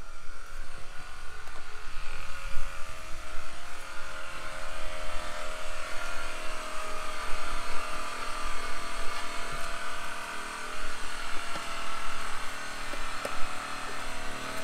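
A motor running steadily at a nearly constant pitch that drifts slightly, with a few faint knocks.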